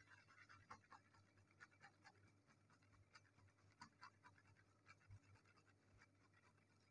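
Near silence: room tone with faint, scattered light ticks and scratches, a few a second.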